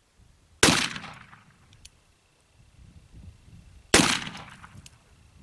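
Two shots from an 1858 Remington Navy .36-calibre black-powder revolver, about three seconds apart. Each is a sharp crack followed by an echo that fades over about a second, with a faint click about a second after each shot.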